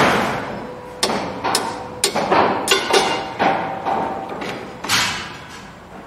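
Construction site noise: a loud bang at the start, then a string of irregular knocks and clanks, some ringing briefly.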